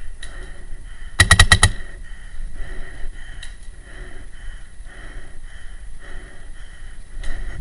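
Paintball marker firing a rapid string of about six shots in half a second, about a second in.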